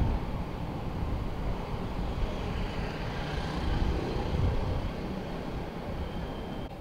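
Outdoor traffic ambience: a steady low rumble of vehicle noise with no distinct single event.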